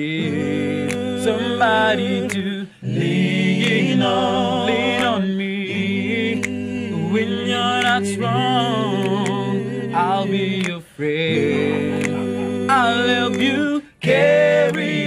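Male close-harmony vocal group singing a cappella: held chords under a lead voice with vibrato and runs, in several phrases with brief breaks between them.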